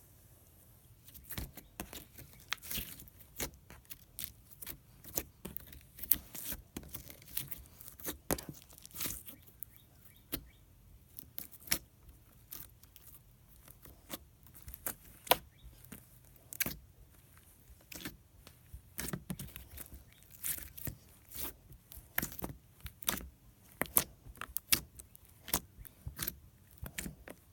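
Slime being squeezed and poked by hand, making irregular crisp clicks and pops, several a second.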